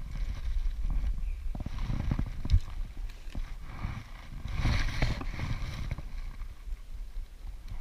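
Handling noise in a small inflatable fishing boat: scattered knocks, clicks and rustles as a just-caught bass is swung aboard and held for unhooking, over a steady low rumble, with two louder rustling stretches, about two seconds in and just before five seconds.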